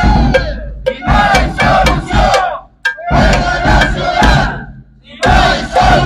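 A crowd of protesters chanting slogans together. The shouts come in phrases of a second or two, with short breaks between.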